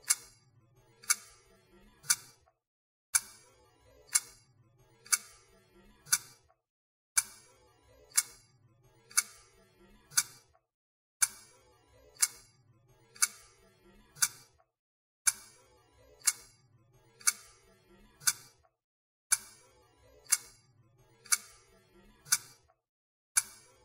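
Clock-like ticking, about one tick a second, over a faint low hum. The pattern repeats as a loop, dropping to silence for a moment about every four seconds.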